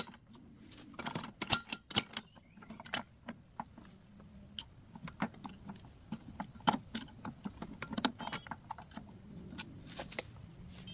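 Small hard parts and tools clicking and clinking irregularly, a rapid uneven run of sharp clicks.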